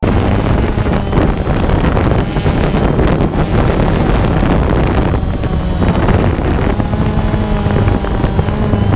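Quadcopter drone's motors and propellers running with a steady hum, mixed with wind noise on the microphone.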